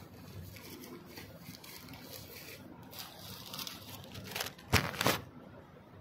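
Faint rustling in a small room, then two loud rustling bursts close together a little before five seconds in.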